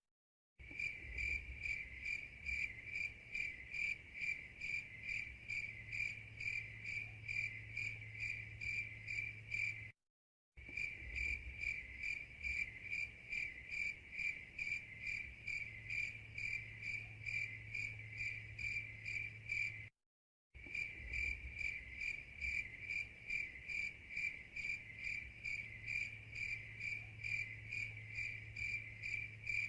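Crickets chirping in a steady, even rhythm of several chirps a second, over a faint low hum. It is a looped sound effect: the sound cuts out for about half a second at the start, again about ten seconds in and again about twenty seconds in, then carries on unchanged.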